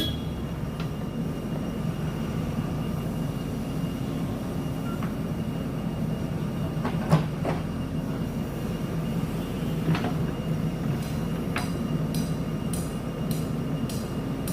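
JCB backhoe loader's diesel engine running steadily at working speed, with a few sharp metallic knocks about 7 and 10 seconds in and a run of short clicks near the end.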